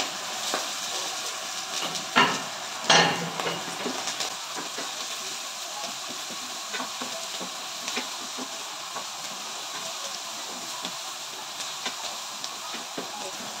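Chopped onion and meat sizzling in oil in a frying pan, stirred with a spatula that scrapes and ticks against the pan. There are two louder knocks about two and three seconds in.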